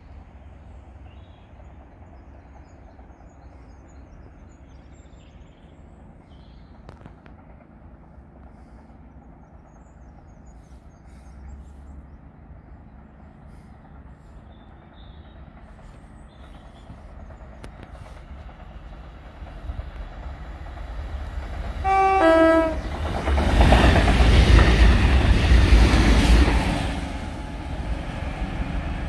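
Yellow rail engineering machine approaching with a low rumble, sounding a short two-tone horn, high note then lower note, about three-quarters of the way in. It then passes close with a loud rush of engine and wheels on the rails, fading as it runs away.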